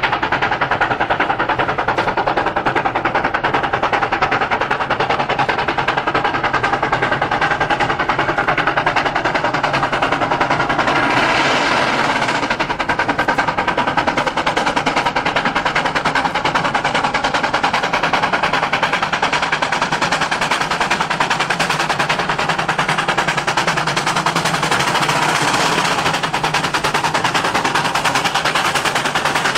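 Steam locomotive working hard, its exhaust chuffing in a rapid, steady beat.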